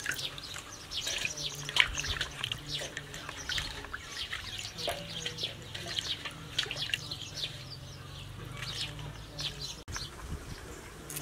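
Hands washing garlic cloves and leaves in water in a stainless steel basin: many small, irregular splashes and drips.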